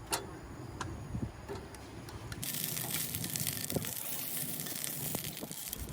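A few light knocks, then about two and a half seconds in a steady hiss of rushing water starts abruptly and runs on.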